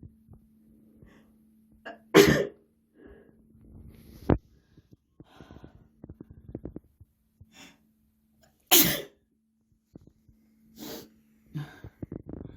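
A person sneezing: two loud, full sneezes about two seconds in and about nine seconds in, with quieter breaths and a short sharp sound between them.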